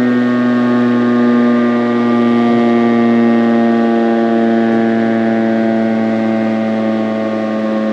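Federal Signal STH-10 electromechanical outdoor warning siren sounding its steady alert, a loud chord of tones that sags slightly in pitch.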